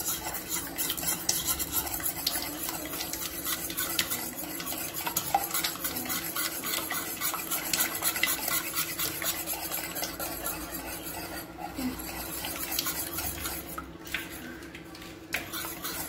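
Eggs beaten by hand with a metal whisk in an enamel pot: rapid, steady clinking and scraping of the wires against the pot, easing off briefly near the end.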